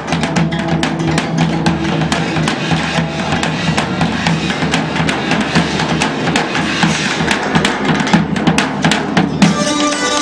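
Medieval-style band playing live: fast, dense drumming over a steady bagpipe drone. Near the end the drums and drone cut off together, and a keyed fiddle (nyckelharpa) carries on alone.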